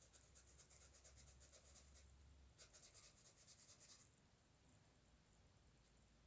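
Faint scratching of a pen on a drawing surface in two runs of quick back-and-forth strokes, each lasting about a second and a half, with a short pause between them.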